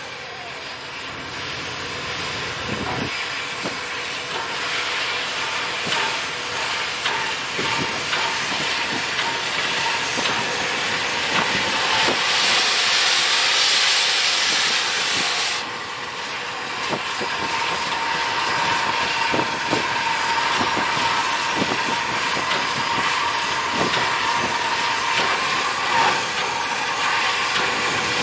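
Santa Fe 3751, a 4-8-4 steam locomotive, working a passenger train toward the listener: a steady hiss of steam with scattered knocks from the running gear and rails. About halfway through, a louder rush of steam hiss lasts about three and a half seconds and then stops abruptly.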